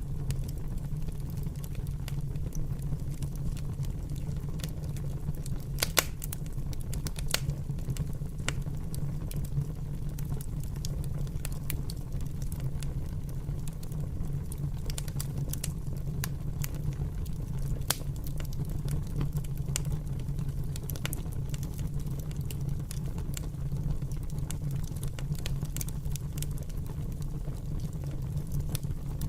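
Fire crackling: scattered sharp pops and snaps over a steady low rumble, the loudest pop about six seconds in.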